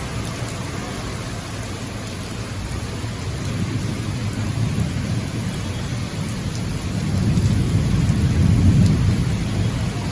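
Heavy rain falling steadily, with a deep rumble that swells and grows louder about seven seconds in before easing near the end.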